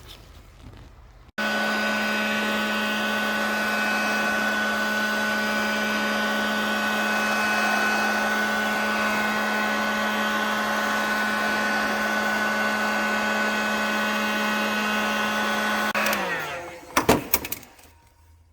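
Heat gun running steadily at one pitch for about fifteen seconds, heating parts so the bearings slide in, then switched off and winding down, followed by a few sharp knocks.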